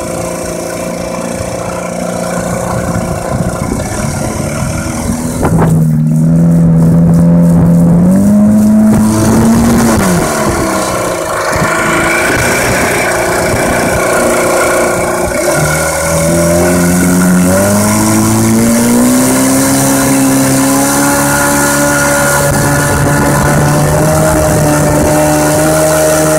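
Evinrude 3 hp two-stroke outboard motor running under way. The throttle is opened and the engine note rises about a fifth of the way in, then falls back, and climbs again in the middle before holding steady at higher revs to the end.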